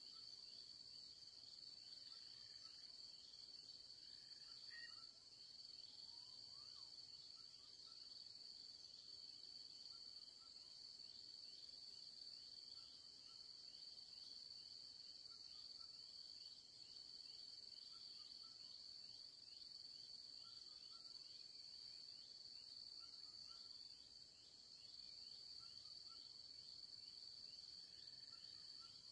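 Faint, steady high-pitched drone of insects in the scrub, with a few faint short chirps scattered through it.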